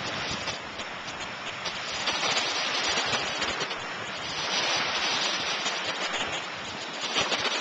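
Small waves washing up on a sandy beach, a hissing wash that swells and fades every two seconds or so.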